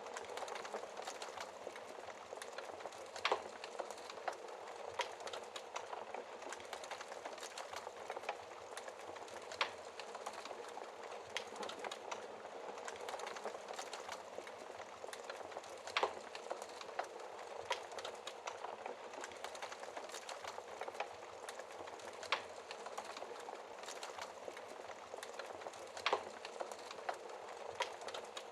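Wood fire crackling in a fireplace, a continuous fine crackle with a louder pop every few seconds.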